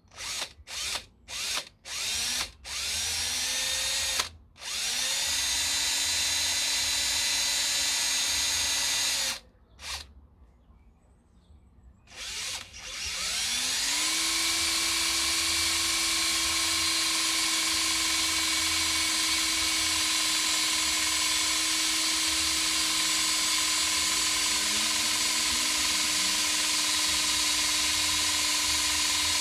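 Cordless drill boring a small hole through a thick-walled aluminium tube. A few short bursts come first, then two longer runs with the motor speeding up. After a pause of about three seconds comes one long steady run at full speed.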